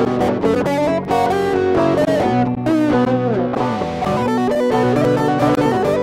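Background music played on guitar, with notes that slide and bend in pitch.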